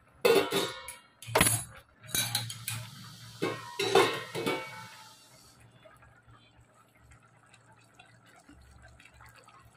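A steel plate lid on a metal cooking pot clinking and clattering as it is gripped with a pot gripper and lifted off, several sharp metal clinks in the first five seconds.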